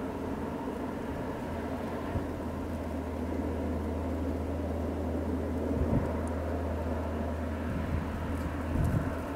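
Wind rumbling on the microphone in a snowstorm: a steady low rumble with a few brief buffets, about six and nine seconds in.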